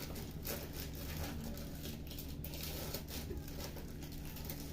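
Faint soft rustles and taps of food being handled by hand, over a steady low hum.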